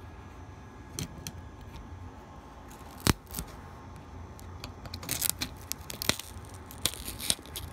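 Plastic parts and adhesive of a Boogie Board Jot 4.5 LCD writing tablet being pried apart with a metal tool: scattered clicks and crackles, one sharp snap about three seconds in, then a quicker run of crackling and ticks in the second half.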